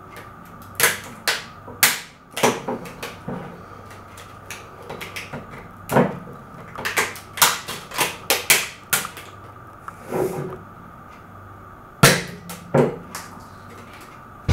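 Plastic floppy disk levering and scraping at a beer bottle's metal crown cap, making a string of irregular clicks and ticks, with two louder snaps close together near the end.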